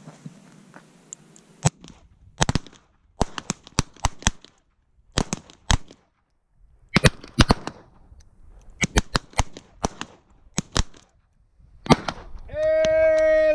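Revolver shots on a firing line, fired at irregular intervals: far more reports than one six-shot cylinder, so several shooters are firing at once. Near the end a steady, level tone sounds for about a second.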